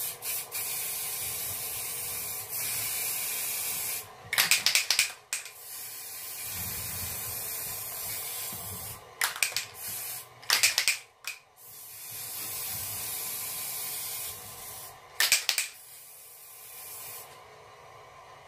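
Aerosol velvet (velours) food spray hissing in long, steady bursts onto a mousse cake. The bursts are broken four times by a short, sharp rattling as the can is shaken.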